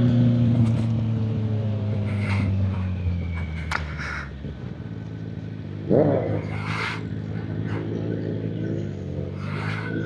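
Sport motorcycle engine running on the road, its pitch falling steadily as it slows over the first few seconds. About six seconds in there is a quick, loud rev blip, then the engine settles into a steady run.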